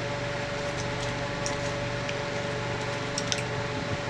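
Steady mechanical hum of room machinery, with a few faint, short clicks now and then.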